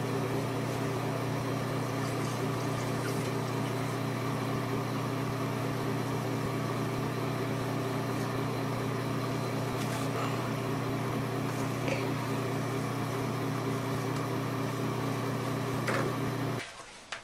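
A steady mechanical hum in a small room, with a few faint clicks and rustles; the hum cuts off suddenly near the end.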